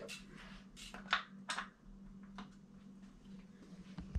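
Several short metal clinks and rattles, spaced irregularly, of hand tools being handled as a 5mm hex key is picked out for the crank bolts, over a steady low hum.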